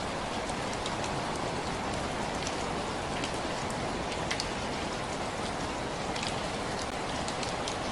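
Steady rain, a constant patter with scattered sharper drop ticks over it.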